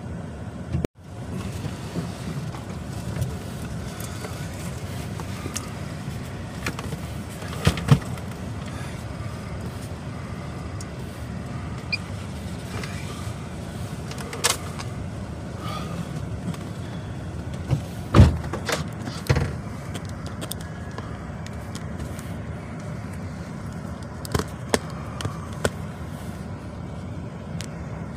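Truck running, heard from inside the cab: a steady low rumble of engine and road noise, with a few short knocks and clunks scattered through.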